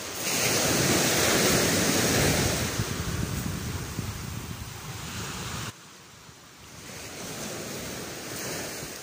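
Small waves washing onto a shingle beach, with wind buffeting the microphone. The sound drops abruptly a little past halfway, then swells again briefly near the end.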